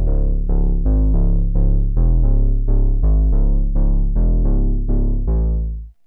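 Behringer Pro-800 analog polyphonic synthesizer playing a Prophet-style bass preset, dry without reverb: a run of short bass notes at about three a second, changing pitch, each starting bright and quickly going dull. The last note is held a little longer and stops just before the end.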